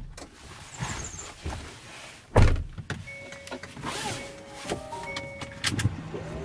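Car door and cabin noises: scattered clicks and one loud thunk about two seconds in, like a car door shutting. From about three seconds in, a run of overlapping electronic tones plays.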